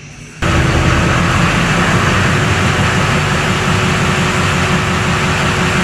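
Chevy pickup's 6.6 L Duramax V8 turbodiesel coming on abruptly about half a second in and then running at a steady idle, with a faint steady whine over the engine.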